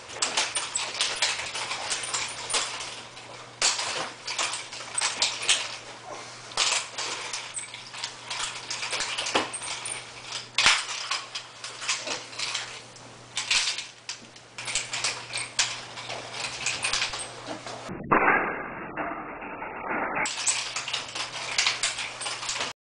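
Ball-bearing chain nunchaku being swung in a freestyle routine: a dense, irregular run of metallic chain rattles and clinks and sharp knocks as the handles are caught and struck, over a steady low hum. It turns muffled for a couple of seconds near the end, then cuts off suddenly.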